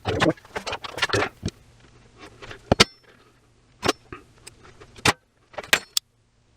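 Small metal crimp eyelet terminals rattling and clinking as they are handled, at first in a quick jumble, then as several sharp separate clicks.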